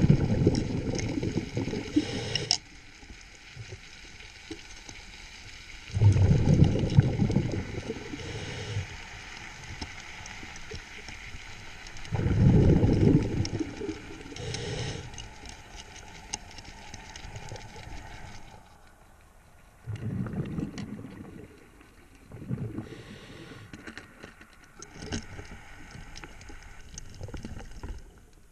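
Scuba diver breathing through a regulator underwater: loud bubbling rumbles of exhaled air roughly every six seconds, each lasting two to three seconds. The rumbles are strong in the first half and softer after about twenty seconds.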